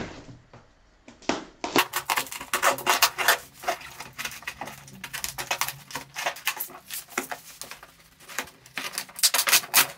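Packing tape on a cardboard box being cut open along the seam with a handheld blade: a dense, irregular run of scratching, crackling and cardboard scraping that starts about a second in.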